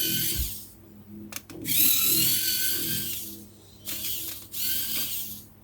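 Small electric precision screwdriver running in three short bursts with a high whine, backing out tiny phone screws.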